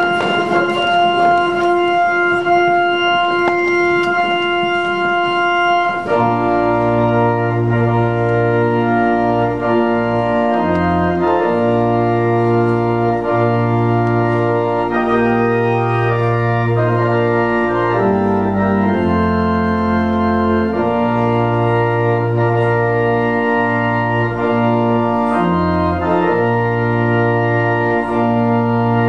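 Church organ holding a single sustained note for about six seconds, then playing full chords over a deep bass line.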